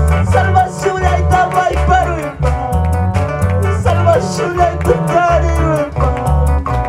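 Live band music with an upbeat rhythm: an electric keyboard and electric guitar play a sliding melody over a steady pulsing bass beat.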